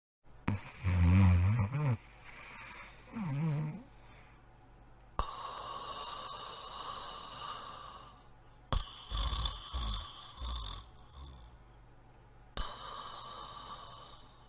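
Cartoon dogs snoring in a run of short clips, the snores rasping and breathy, each clip cutting off suddenly into the next about every four seconds.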